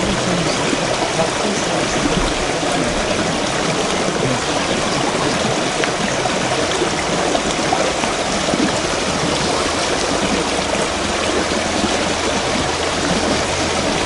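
Shallow stream running over stones through a small riffle: a steady, even rush of flowing water.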